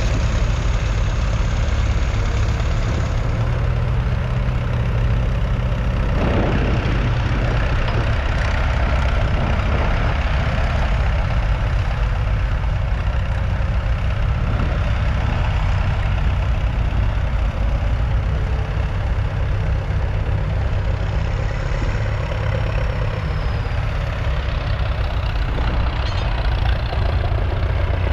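Leyland 802's 3.8-litre four-cylinder diesel engine running steadily, its engine note shifting slightly a few seconds in.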